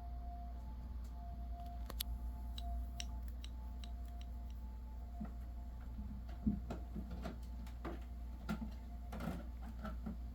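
Scattered light clicks and soft taps over a steady low hum, becoming busier in the second half, with the loudest tap about six and a half seconds in.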